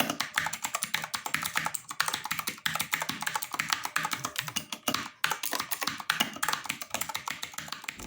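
Redragon Kumara K552 mechanical keyboard being typed on quickly, as a sound test of tape mods meant to damp its metallic echo. It gives a fast, continuous run of key clacks with a brief pause about five seconds in.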